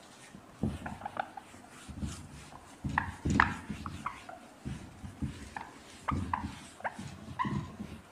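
Whiteboard eraser rubbing across the board in a series of quick wiping strokes, with short high squeaks from the eraser on the board surface.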